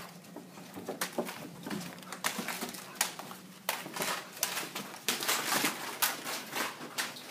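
Irregular clicking, knocking and rustling from children scrambling across a carpeted floor to grab eggs into baskets, busiest in the second half.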